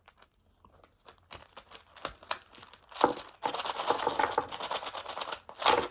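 Plastic packaging crinkling and rustling as a wrapped parcel is unwrapped by hand, with a few soft clicks at first, then steady, louder crinkling from about halfway through.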